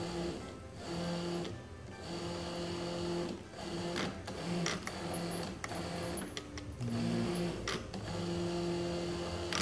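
Two wheelchair gear motors whirring in short on-off runs as the radio control stick is pushed and released. The pitch shifts now and then, and sharp clicks fall between some runs.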